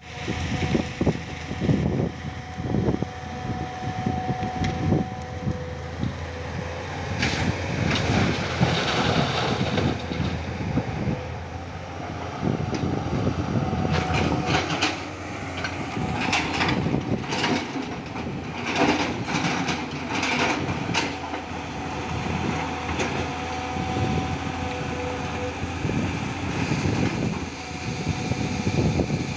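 Tata Hitachi 200 hydraulic excavator working: its diesel engine runs steadily under a faint steady whine, with sharp clanks and knocks that come thickest from about seven to ten seconds and again from about fourteen to twenty-one seconds.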